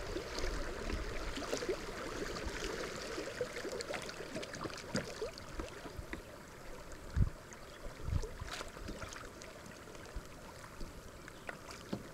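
River water burbling and rippling around a drifting kayak, with two dull thumps about seven and eight seconds in.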